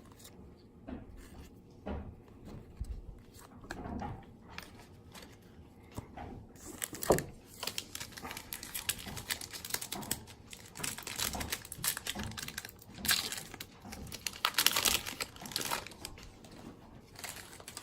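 Baseball card pack wrappers crinkling and rustling as packs are torn open and the cards handled; sparse soft handling at first, then steady crinkling from about six seconds in.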